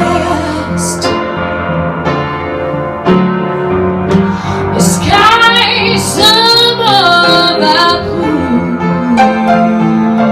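A woman singing with piano accompaniment; about halfway through, her voice climbs into high, wavering held notes.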